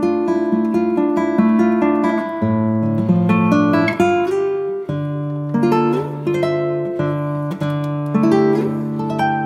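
Background music: a plucked acoustic guitar tune, played as a steady run of picked and strummed notes.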